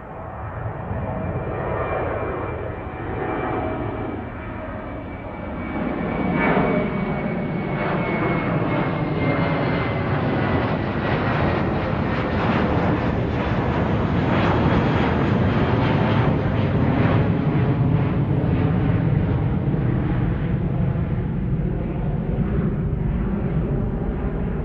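An airplane's engines passing close by. The rushing noise builds over the first several seconds while a high whine slides slowly down in pitch, and it settles into a loud steady roar.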